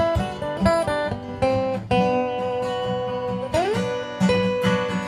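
Acoustic guitar instrumental break: single picked melody notes over steady chords, with a note sliding up about three and a half seconds in.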